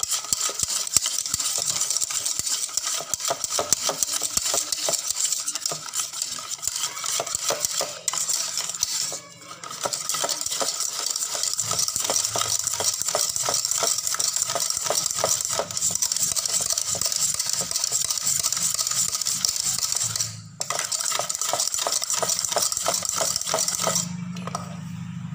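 Wire balloon whisk beating thick martabak batter in a bowl, the wires clicking and scraping rapidly against the bowl as a spoonful of cooking oil is mixed in. It breaks off briefly twice and stops about a second before the end.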